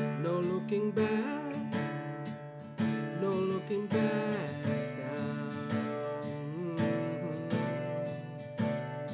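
Acoustic guitar in an alternate tuning, strummed about once a second, with melody notes sliding in pitch between the strums.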